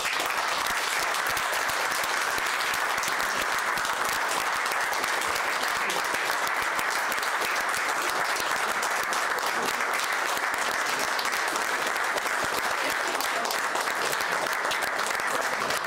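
Steady applause from a room full of people clapping, dense and even throughout.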